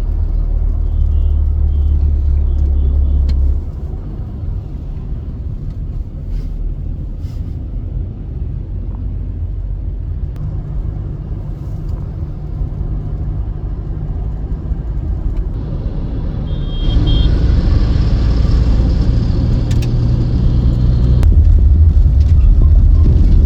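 Road traffic heard from a moving vehicle: a steady low rumble that shifts abruptly in level a few times, with a couple of faint short horn beeps.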